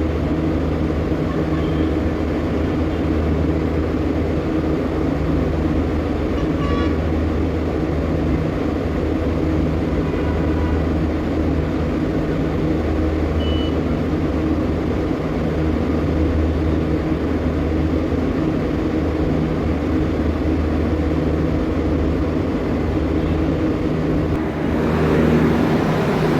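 Steady low machinery hum of running HVAC plant equipment, swelling and fading slightly every few seconds, with a rise in hiss near the end.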